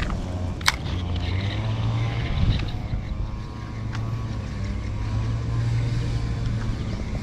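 Motorised grass trimmer engine running steadily, its hum swelling and easing slightly, with a sharp click under a second in.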